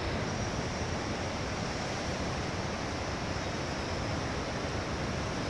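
Steady, even rushing background noise of a large hall, with no distinct sounds standing out.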